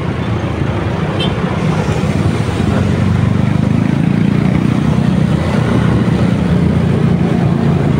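Motorcycle running steadily on the road: a low engine hum under a broad haze of wind and traffic noise.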